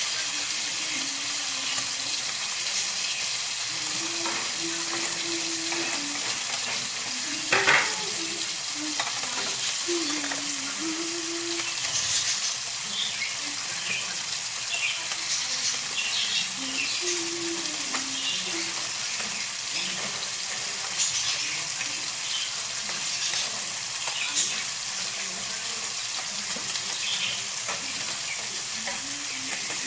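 Food sizzling in a frying pan on a gas stove while a utensil stirs it, scraping and tapping the pan, with one louder knock about eight seconds in.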